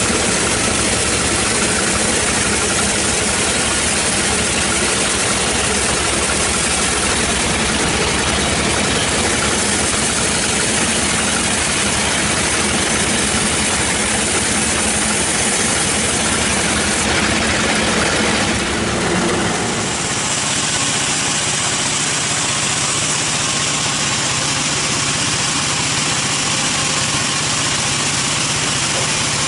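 Sawmill band saw and its drive running loudly while a wooden slab is fed through and cut, a dense steady machine noise. About two-thirds of the way through the low rumble drops away abruptly, leaving a steadier machine hum.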